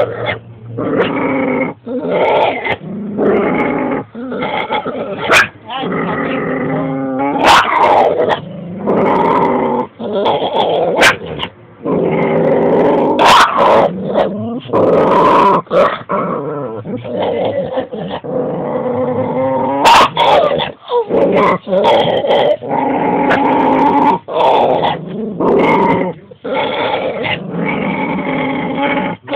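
Two dogs squabbling over a bone: a near-continuous run of growling and barking, with wavering, bleating yowls that sound like an angry goat, broken by short pauses.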